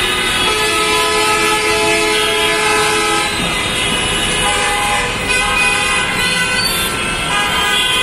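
Several bus and vehicle horns blaring and overlapping over the steady rumble of stopped traffic in a jam. One long horn is held from about half a second to three seconds in, and other horns of different pitch sound later on.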